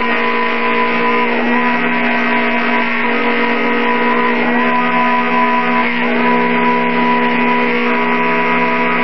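Mini CNC mill engraving plastic: its small brushless three-phase spindle motor runs steadily while the cutter works, and the axis drive motors whine in tones that jump to a new pitch every second or two as the cutter changes direction.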